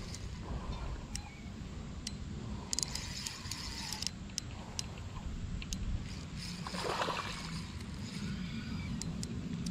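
River water sloshing and splashing as a hooked smallmouth bass is played in on a fishing line, with scattered sharp clicks over a steady low rumble and a brief louder splash about seven seconds in.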